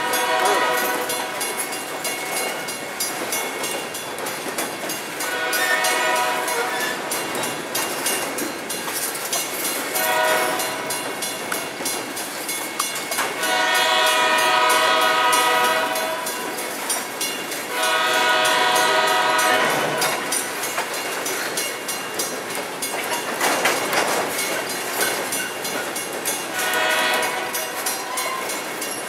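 Train cars rolling past, wheels clacking and rumbling on the rails, while the train's multi-chime air horn sounds several blasts: a few short ones, two long ones about halfway through, and another short one near the end.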